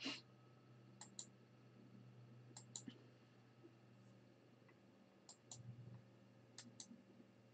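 Faint computer mouse clicks, each a quick press-and-release pair, repeated about five times at irregular intervals over a low, steady hum.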